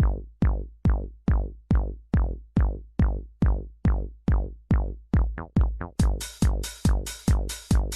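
Electronic background music driven by a steady drum-machine kick, a little over two beats a second; crisp high percussion joins on each beat about six seconds in.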